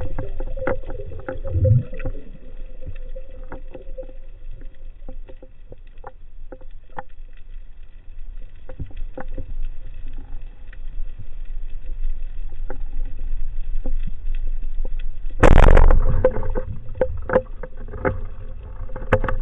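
Underwater recording through a camera housing: a muffled water rumble with scattered sharp clicks and crackles, and a brief loud rushing burst about fifteen seconds in.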